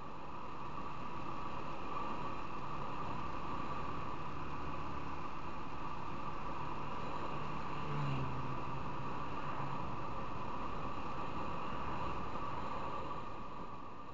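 Motorcycle on the move, heard from a camera mounted on the bike: a steady rush of wind and road noise with the engine running underneath. About eight seconds in, a brief sound falls in pitch.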